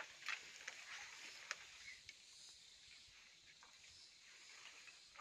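Faint outdoor ambience: a steady high hiss with scattered light clicks and snaps.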